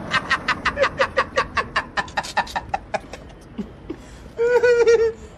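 A person laughing in a long run of quick "ha-ha" pulses, about seven a second, fading away over about three seconds. Near the end, a short, high, wavering voiced sound.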